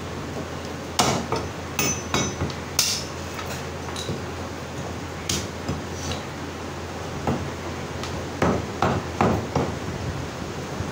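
Meat cleaver chopping mutton on a wooden log chopping block: sharp, irregular chops, a quick cluster in the first few seconds and another run near the end, over a steady low hum.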